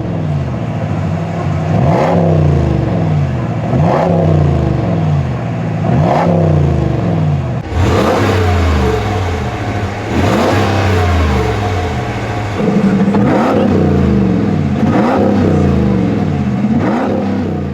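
Dodge Ram 1500 pickup engine, heard through its custom-built dual-mode exhaust, revved in short blips about every two seconds and dropping back to idle between them. The exhaust gets louder about two thirds of the way through.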